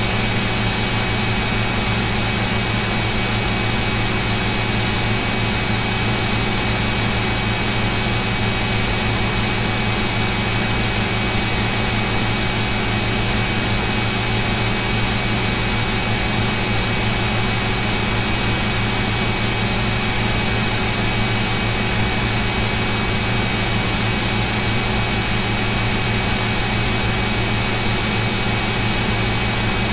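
Steady hiss with a constant low hum and a few faint steady tones, unchanging.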